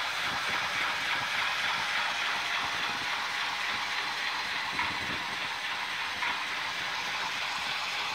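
South Bend metal lathe running steadily on its first run after a VFD control install and flat-belt splice. Its flat belt, countershaft pulleys and gears are turning with a steady mechanical whir and irregular clatter.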